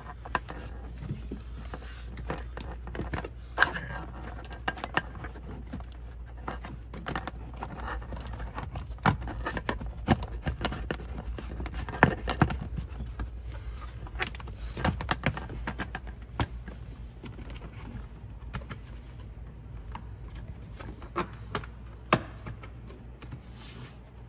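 Irregular light clicks, taps and rustling of a Tesla Model 3's plastic side trim panel being handled, its legs slotted into the carpet and pressed back into place, with a few sharper snaps among them.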